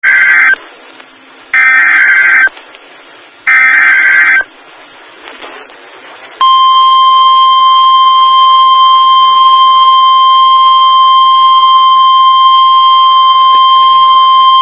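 NOAA Weather Radio emergency alert: three short bursts of digital SAME header data, about a second apart and the first cut short, then about two seconds of quiet before the steady single-pitch warning alarm tone starts and holds. The sequence signals that a severe thunderstorm warning message follows.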